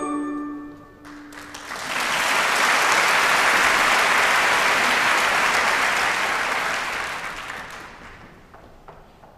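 An orchestra's last held note dies away, then a theatre audience applauds: the clapping swells about two seconds in, holds, and fades out near the end.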